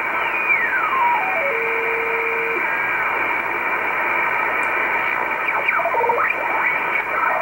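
Shortwave receiver static in upper-sideband mode as the Icom communications receiver is tuned across the 10 MHz band: a steady hiss with carrier whistles sliding past. One whistle falls in pitch in small tuning steps, holds a low tone for about a second and stops. More brief whistles sweep up and down about six seconds in.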